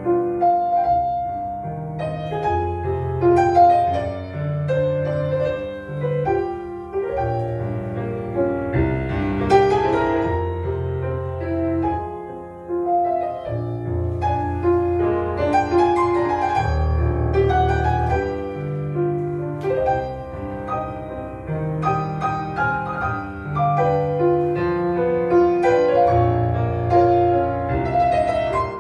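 Solo piano playing classical ballet-class music, an accompaniment for barre exercises, with a steady bass line under a melody.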